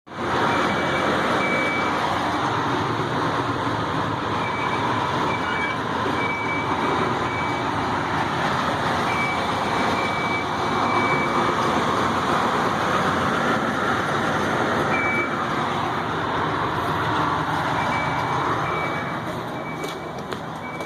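Loud, steady heavy-vehicle noise, with a high electronic beep sounding on and off in irregular short and longer bursts, like a reversing alarm.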